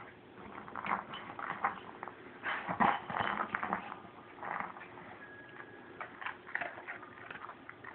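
Golden retriever licking and mouthing a rubber ball, with her nose and muzzle rubbing it and the plush blanket: an uneven run of short smacking and rustling sounds, busiest about three seconds in.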